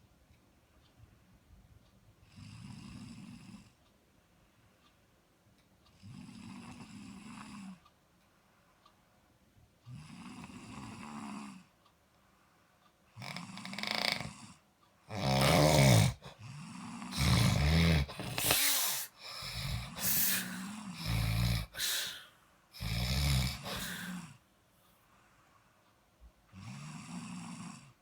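Snoring in slow, even snores about every four seconds. In the middle it turns much louder and more ragged, with snores coming close together, then settles back to one softer snore near the end.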